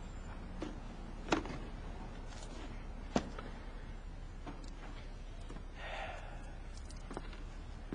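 Scattered light knocks and clicks of objects being handled as someone moves about a room, two sharper ones about one and three seconds in, over a low steady hum, with a brief rustle near six seconds.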